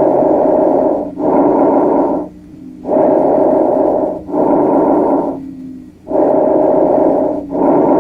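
Bronchovesicular breath sounds heard through a stethoscope: each breath is a soft rushing noise in two phases of about equal length, in and out, with a brief gap between them. About three breaths, one every three seconds or so.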